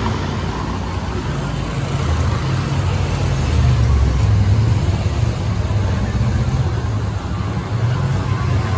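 Motor vehicles passing close on a narrow city street: a low engine rumble that swells to its loudest about halfway through, over general street noise.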